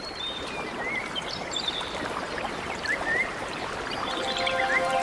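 Alarm tone of recorded nature ambience: birds chirping over a steady rush of running water, fading in and growing louder. Held music notes come in near the end.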